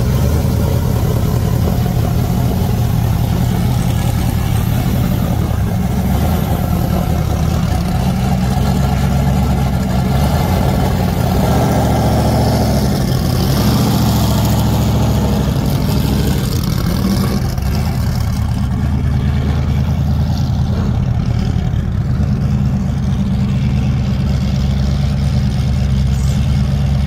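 Stadium Super Truck race truck engines running, a loud, steady low engine drone throughout. Around the middle it takes on a higher, brighter note as one truck drives past.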